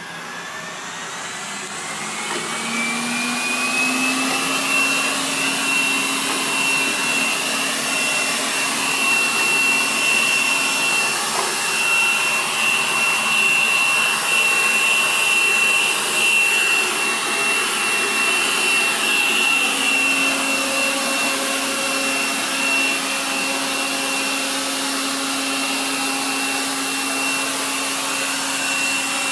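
AIRROBO P20 robot vacuum cleaner running: its whine rises in pitch and grows louder over the first few seconds as the suction motor spins up, then holds as a steady high whine over a rushing noise.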